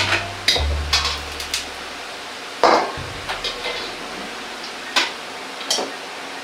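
Metal ladle knocking and scraping against an iron wok: a string of sharp metallic clinks, the loudest about two and a half seconds in, with a few lighter knocks after.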